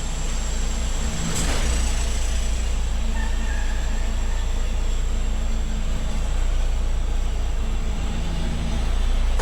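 Heavy tow truck's engine running steadily with a deep low rumble, a thin high whine above it, and a brief sharp click about a second and a half in.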